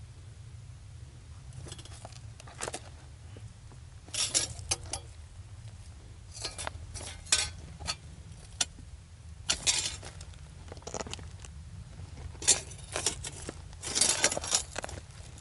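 Footsteps crunching over loose rocks and gravel, stones clinking underfoot in uneven clusters of steps.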